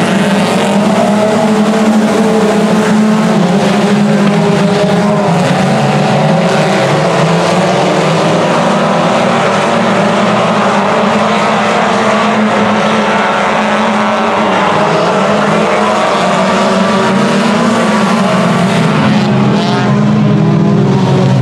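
A field of four-cylinder dirt-track stock cars racing together, several engines running hard at once. Their overlapping engine notes rise and fall steadily as the pack circles the oval.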